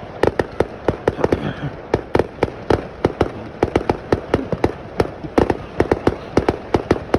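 Fireworks going off in a rapid, unbroken barrage of sharp bangs, several a second.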